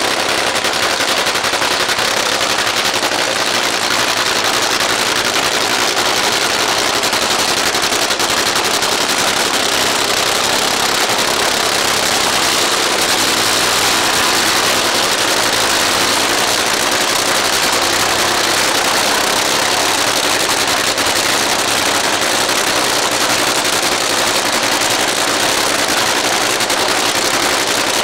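Supercharged nitromethane-burning engines of a Top Fuel dragster and a Funny Car idling at the start line, a loud, steady, dense rattle that does not change.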